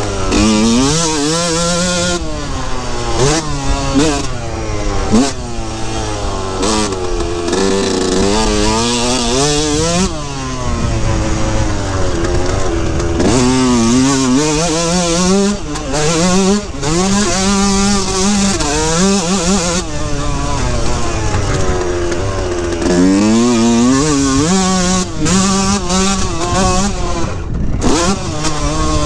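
2003 Yamaha YZ125 single-cylinder two-stroke engine revving hard as the bike is ridden around a dirt track. The pitch climbs steeply over and over, breaking off at each shift or throttle-off and falling away before climbing again. The rider suspects the engine is bogging.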